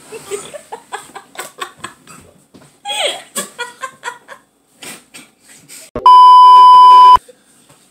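Laughter with scattered short bursts, then about six seconds in a loud, steady 1 kHz test-tone beep that lasts just over a second and cuts off abruptly: the bars-and-tone signal of an edited-in 'technical difficulties' break.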